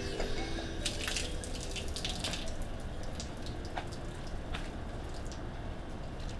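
Steady low background noise with scattered small drips and clicks, most of them in the first few seconds.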